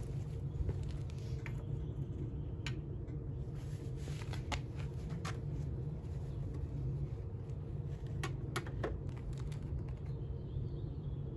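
Scattered light clicks and taps from handling a motorcycle's oil dipstick, a plastic oil bottle and a funnel at the oil fill port, over a steady low rumble.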